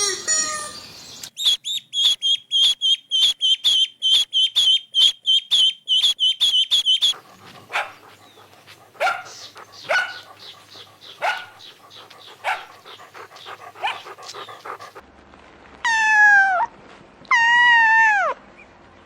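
Small animals calling in a series of short clips: about six seconds of rapid, high-pitched calls, about four a second, then scattered short yelps, then a cat meowing twice near the end, each meow a long falling call.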